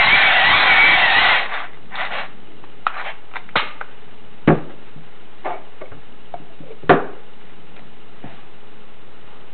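A wind-up dynamo candle being cranked: a loud, steady mechanical whir with a wavering whine that stops about a second and a half in. A few scattered clicks and knocks follow.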